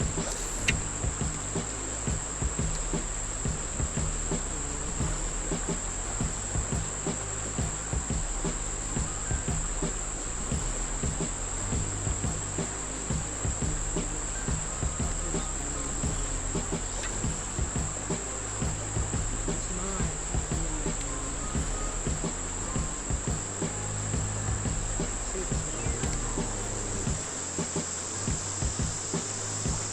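A chorus of insects trilling steadily in one continuous high-pitched band, over a low uneven rumble.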